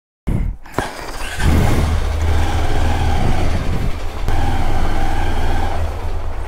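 Motor vehicle running on the road: a steady low engine drone with road noise, starting suddenly just after a moment of silence.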